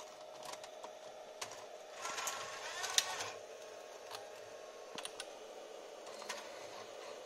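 Sony HSR-1 DV tape mechanism taking in a DVCAM cassette: clicks as the cassette goes in, a short motor whir with clicking about two seconds in as the loader draws it down, then scattered light clicks. The cooling fan hums steadily underneath.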